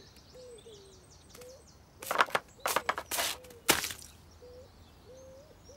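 A quick flurry of four or five short, loud scuffling, scraping noises from about two seconds in, as the cat-food bowl is snatched off the windowsill. Faint birdsong plays throughout.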